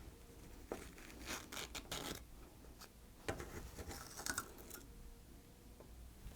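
Faint scratching and rubbing handling noises in scattered bursts: the small motor filters being lifted out of the back of a Dyson V6 stick vacuum's motor head and dust picked off them by hand.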